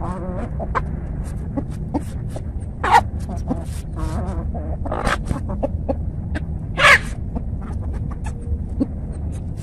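Chickens clucking and squawking while they forage, with two louder short squawks about three seconds in and near seven seconds, over a steady low rumble.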